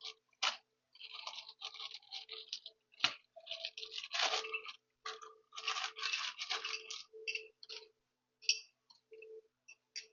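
Short, irregular bursts of scraping and scratching from hand work on small suspension hardware, with a faint hum that comes and goes.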